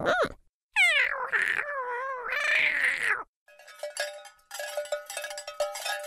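Kitten meowing: high, wavering calls with sliding pitch over the first three seconds. From about halfway, a run of short, bright ringing notes with light clicks takes over.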